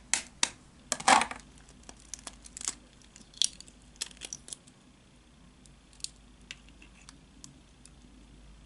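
Chicken egg knocked against the rim of a glass bowl, the sharpest knock about a second in, then the shell crackling as it is pried apart. A few faint ticks follow as the yolk is passed between the shell halves and the white drains into the bowl.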